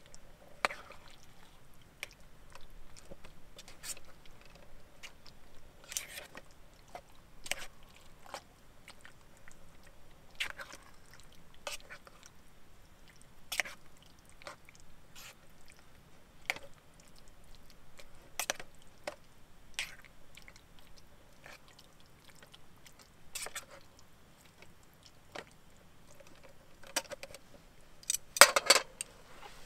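A spoon stirring and scraping food in a metal camp pot: light clinks and scrapes every second or two, with a quicker run of louder clinks near the end.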